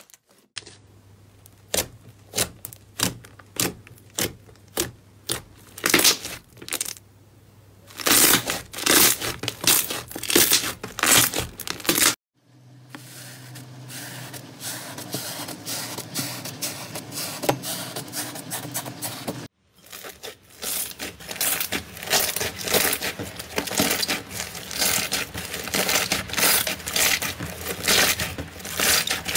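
Slime being squeezed, pressed and poked by hand, making rapid crackling pops and crinkling squelches. The sound comes in three short runs with abrupt changes between them, the later ones denser.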